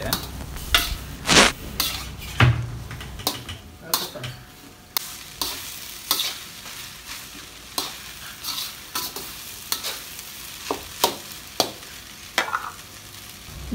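Metal spatula scraping and knocking against a metal wok as fried rice is stirred and tossed, in irregular strokes a couple each second, over a low sizzle of frying.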